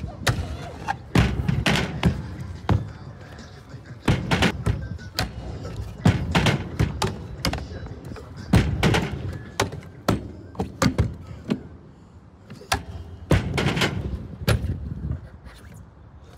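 Stunt scooter clattering on a steel-edged concrete skatepark ledge: a string of sharp knocks and clacks as the deck and wheels land on the ledge and grind along it, in several separate bursts, with rolling noise between.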